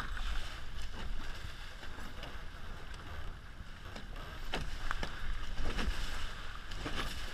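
Water rushing and splashing along a Hobie 16 catamaran's hull as it sails through chop, with several sharper wave slaps and bursts of spray in the second half. Wind rumbles on the head-mounted camera's microphone underneath.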